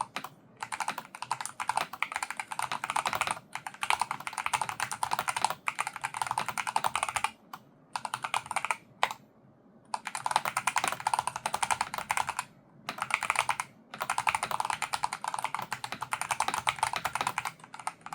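Typing on a Logitech G Pro X TKL Rapid keyboard with analog Hall-effect magnetic linear switches: fast, dense runs of keystrokes in bursts, broken by short pauses, the longest about nine seconds in.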